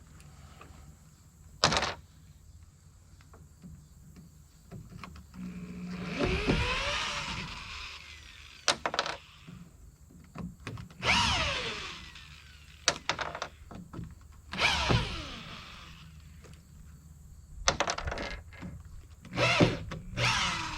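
Old wooden barn-door boards being worked loose: sharp knocks and several drawn-out creaking, scraping wrenches of wood, the boards rotten and being torn off for a rebuild.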